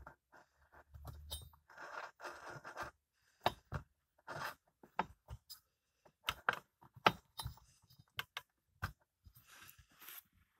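Small four-stroke engine of a Makita MM4 blower being turned over by hand with its valve cover off, giving irregular small metal clicks and knocks with short scraping sounds near the start and near the end.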